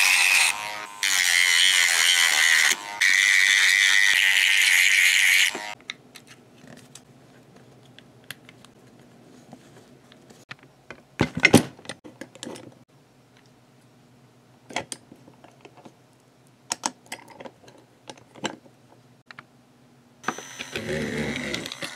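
Rotary tool with a sanding drum running at high speed against a plastic toy-train chassis, cutting out briefly twice and stopping about five seconds in. Then plastic parts click and knock as the chassis is handled, and a steady whirring starts up near the end.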